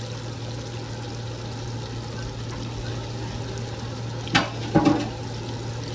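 Food deep-frying in a pot of hot oil: a steady, busy sizzle and bubbling. A low hum runs under it, and two short sharp sounds break in a little over four seconds in.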